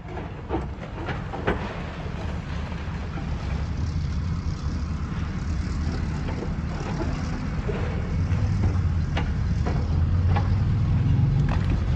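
Heavy diesel engine rumbling and growing louder, with scattered sharp metallic knocks and clanks.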